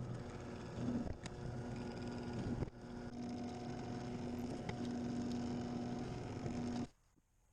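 A motorised tool runs steadily with a hum, starting suddenly, dipping briefly about a third of the way in, and cutting off sharply near the end.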